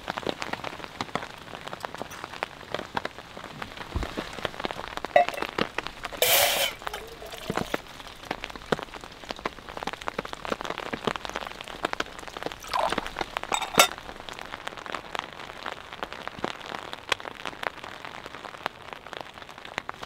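Rain pattering on tent fabric: a dense, irregular stream of small drop hits, with a few louder hits, the biggest about six seconds in.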